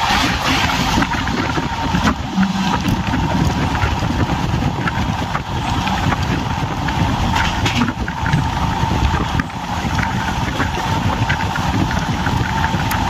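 Passenger train running on the move: a steady rumble of the coaches with a thin, constant high hum over it and a few faint ticks.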